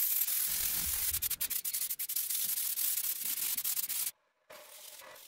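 Aerosol spray paint can hissing with a few brief breaks, stopping abruptly about four seconds in; a fainter hiss follows.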